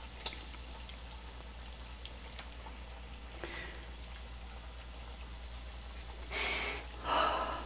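Battered bacon strips frying in hot oil in a skillet: a steady sizzling hiss with faint scattered pops, growing louder twice briefly near the end.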